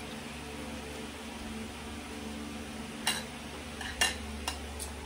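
Spoons and forks clinking against plates and bowls a few times during a meal, the loudest clink about four seconds in, over a steady low hum.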